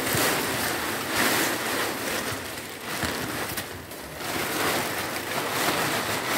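Black plastic sheeting rustling and crinkling as it is grabbed, pulled and spread by hand, with a short lull about four seconds in.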